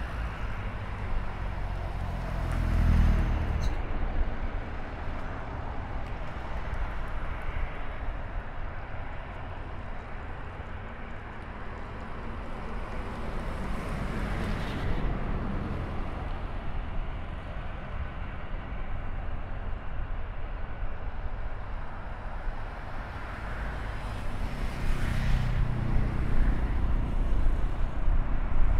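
Jet engines of a Boeing E-3D Sentry (four CFM56 turbofans) running at taxi power, a steady rumble and rush. It swells louder about three seconds in and again near the end.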